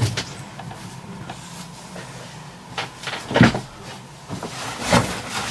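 Knocks and thuds of something being shut, the two loudest about three and a half and five seconds in.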